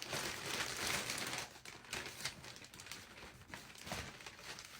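Plastic packaging crinkling and rustling as it is handled, densest in the first second and a half, then thinning to scattered crackles.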